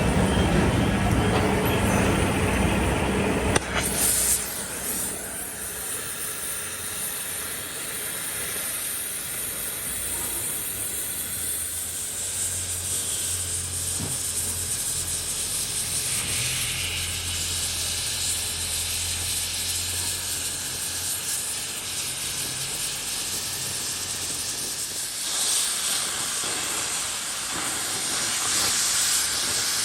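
A loud machine hum in the first few seconds cuts off suddenly. It gives way to a steady hiss over a low hum that runs on through the rest.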